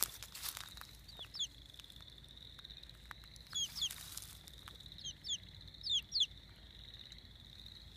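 A three-week-old chick peeping: short, high, downward-sliding peeps in small groups of two or three, with a faint steady high tone underneath.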